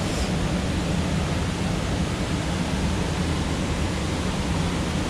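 Mountain stream rushing: a steady, even wash of water noise.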